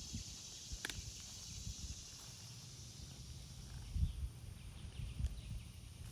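Outdoor ambience: a steady high hiss under irregular low rumbling thumps, with one sharp click about a second in and faint short high ticks later on.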